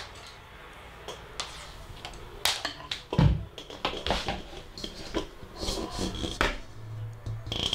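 Handling noise from a camera being adjusted: scattered small clicks and knocks, with a low thump about three seconds in and a brief low hum near the end.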